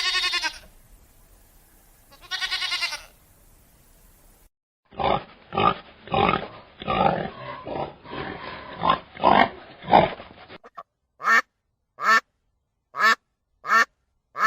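A string of animal calls from separate recordings: two wavering bleats, then a long run of rapid, uneven calls, then five short, falling barks spaced a little under a second apart.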